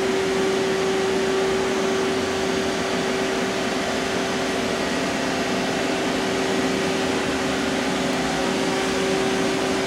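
Powered-on 2006 DMG Gildemeister NEF600 CNC lathe running: a steady machine hum with one constant tone, unchanging throughout.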